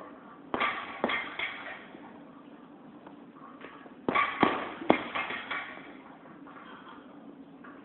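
Gloved punches landing on a heavy punching bag, a quick flurry of three about half a second in and a longer flurry of about six about four seconds in. Each thud echoes in a large hall.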